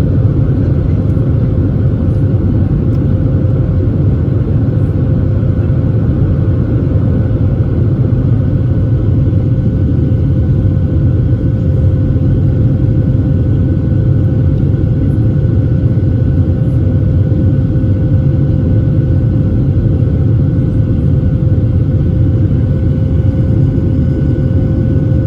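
Boeing 737-700 jet engines and airflow heard as a steady, loud cabin rumble, with a constant hum over it, as the airliner climbs after departure.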